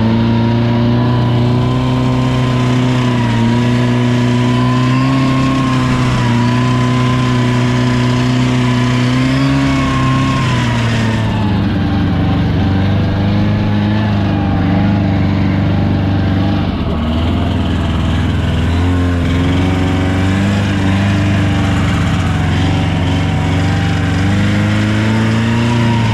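Car engine running hard under load, its revs holding, then dropping and wavering, then rising again near the end, as the wheels spin and slip in a dip.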